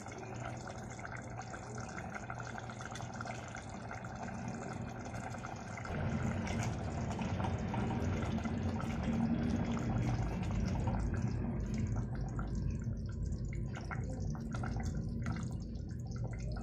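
Thin curry gravy simmering and bubbling in a steel pot on a gas burner. From about six seconds in, a steel ladle stirs through it, with short clinks against the pot later on.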